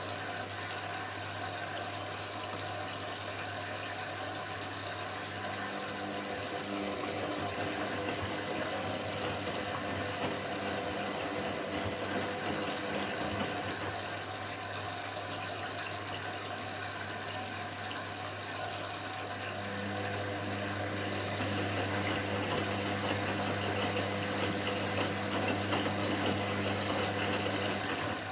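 Washing machine running with a steady hum and the rush of water. The hum wavers in the middle and comes back slightly louder near the end.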